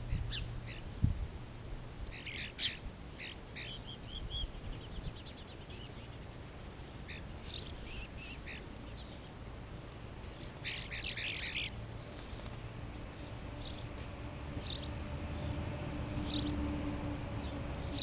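Songbirds calling: scattered short high chirps, a quick run of repeated notes about four seconds in, and a louder burst of chattering calls around eleven seconds. A faint steady low hum, like a distant engine, comes in during the second half.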